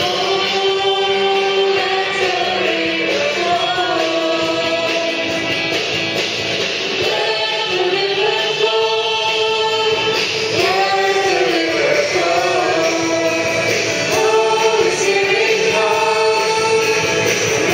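Choir singing a hymn, with men's and women's voices holding long, slowly moving notes.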